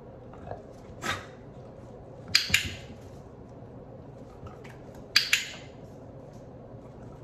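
Sharp clicks of a handheld dog-training clicker: one softer click about a second in, then two quick double clicks about two and a half and five seconds in. They mark the dog's movement while a trick is being shaped.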